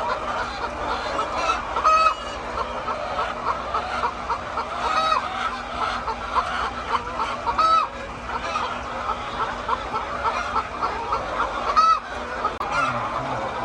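A flock of chickens clucking and calling in a coop, a steady chatter of many birds. Four louder, drawn-out squawks stand out, spaced a few seconds apart.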